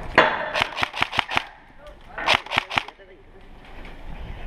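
Airsoft guns firing in quick strings of shots: about five sharp cracks in the first second and a half, then another burst of about four a little past halfway.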